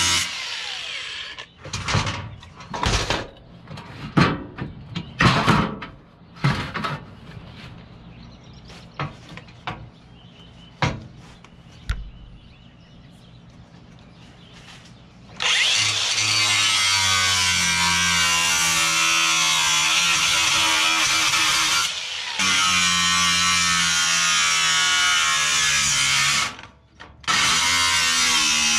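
Angle grinder with a thin cut-off wheel cutting the sheet-steel cover of a breaker panel. It stops just after the start, a run of sharp metal knocks and clatter follows, and then the grinder runs and cuts again for about the second half, dropping out twice briefly.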